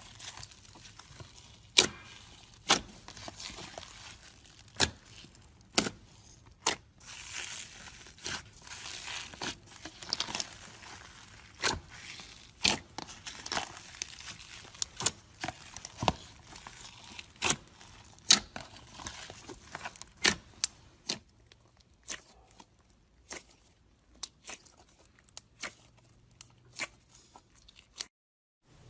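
Hands working slime: irregular sharp pops and clicks with stretches of crackling and crinkling, then a brief drop-out near the end.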